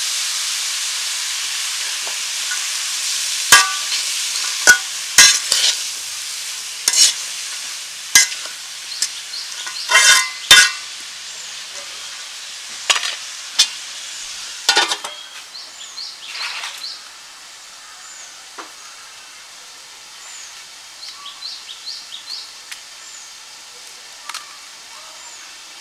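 Chopped bitter gourd sizzling in oil in an aluminium pan, the hiss loudest at first and fading, while a metal spatula stirs it, scraping and knocking sharply against the pan over and over through the middle and more sparsely near the end.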